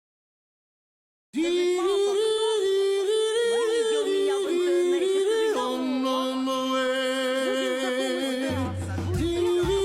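About a second of silence, then an a cappella vocal group singing long held notes in harmony. A low bass voice joins near the end.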